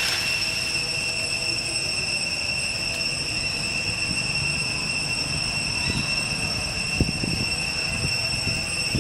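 Steady high-pitched drone of insects, heard as one unbroken whine throughout, over a low rumble, with a few soft low knocks a few seconds from the end.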